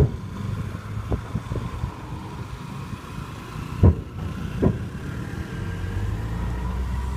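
Aerial fireworks bursting: a series of deep booms, the loudest about four seconds in, over a steady low rumble.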